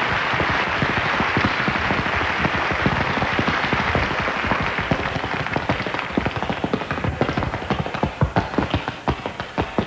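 Metal-tipped tap shoes striking a wooden stage board in a fast, uneven stream of sharp taps. Audience applause runs over the first half and fades out about halfway through, leaving the taps on their own.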